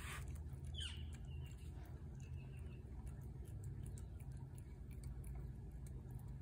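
A domestic cat eating from a plate close by: many small wet clicks and smacks of chewing and licking, over a steady low hum. There is a short high chirp about a second in.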